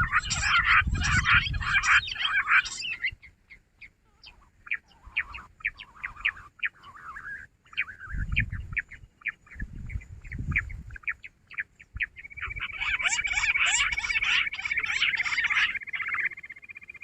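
Jungle bush quail calling: a dense chorus of rapid high chirps, thinning to scattered notes in the middle and swelling again near the end, with a few low rumbles underneath.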